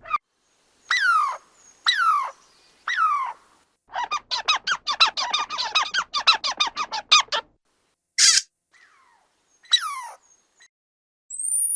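Squirrel squeaking: three high calls sliding down in pitch about a second apart, then a fast chattering run of calls for about three seconds. A few more scattered squeaks follow, with a rising squeal near the end.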